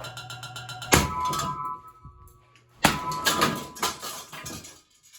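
A Hampton Bay Littleton ceiling fan motor, rusted and with worn-out bearings, runs with a steady hum and a fast rattle. It is then struck hard about a second in, with a clang that rings on, and again near three seconds with a flurry of clattering metal blows, after which the hum is gone.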